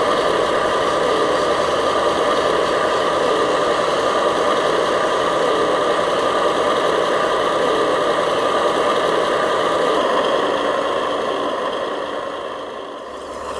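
A radio-controlled truck running steadily with an engine-like mechanical hum; it fades down near the end and cuts off abruptly.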